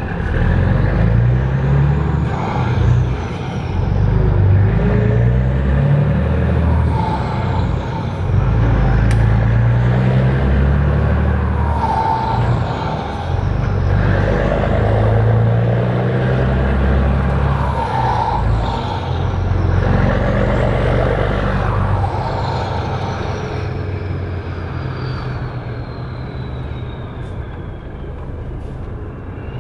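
Volvo FH16 520 truck's 16-litre straight-six diesel with an open exhaust pipe, heard from inside the cab, pulling away with the revs repeatedly rising and dropping back. A high turbo whistle rises and falls over the engine note. Over the last several seconds the revs and whistle ease off as the engine gets quieter.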